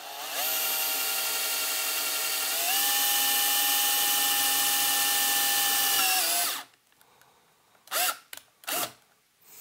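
Power drill boring a hole through the metal top of a tube-amplifier chassis: the motor whines steadily, steps up in pitch partway through as the speed rises, then winds down and stops. Two short whirs of the drill follow near the end.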